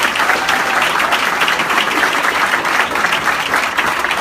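A crowd of parents applauding steadily, many hands clapping at once.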